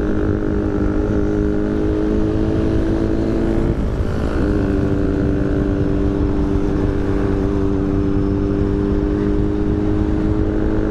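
Honda CBR600RR inline-four engine running steadily at cruise under wind rush, with a short break in the engine note and a drop in pitch about four seconds in: an upshift, after which the note slowly rises again.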